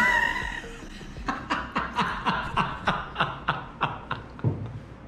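A man laughing heartily in a long run of quick 'ha' bursts, about four a second, after a brief high-pitched vocal cry at the very start.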